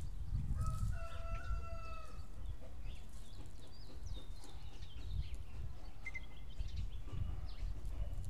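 One long drawn-out animal call, held for over a second about half a second in, over a steady low wind rumble on the microphone, with a few short high chirps later.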